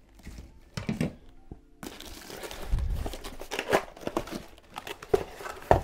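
Packaging crinkling and rustling as tool-kit contents are handled and pulled from the box, a dense run of small crackles starting about two seconds in, with a dull low thump near the middle and a sharp knock near the end.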